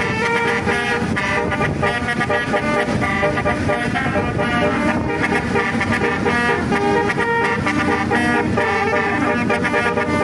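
Basuri 'telolet' multi-tone bus horn playing a dangdut melody: a continuous run of loud horn notes changing pitch in quick succession.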